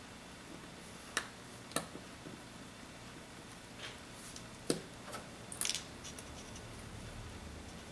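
Faint, scattered clicks and light taps of small repair tools and screws on an iPad 2's internals, as the screws holding the switch bracket go back in. There are a few isolated sharp clicks, with a small cluster a little past the middle.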